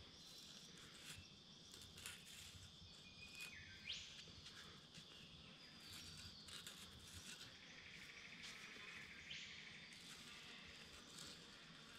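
Near silence: faint bush ambience of insects trilling and a couple of short, quickly rising bird calls, with a few soft clicks.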